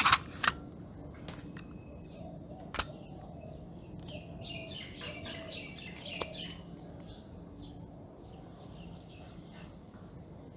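A plastic precision-screwdriver kit's case clicks open with two sharp snaps, followed by a few lighter clicks as a driver and bit are handled. Birds chirp in the background around the middle, over a low steady room hum.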